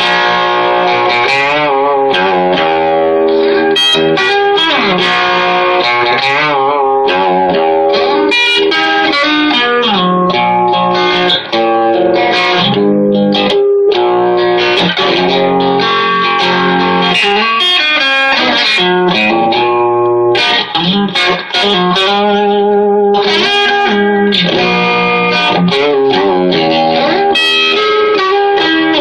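Electric guitar played through a repaired Vox AC15 valve amp. The amp is working properly again on two NOS power tubes, fitted after a shorted capacitor took out one output tube. The playing is continuous: single notes and chords, some of them wavering.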